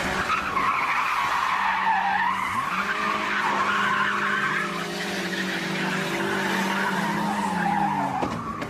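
A car's tyres squealing as it skids sideways. Its engine revs up about two and a half seconds in and holds at high revs, then drops off near the end.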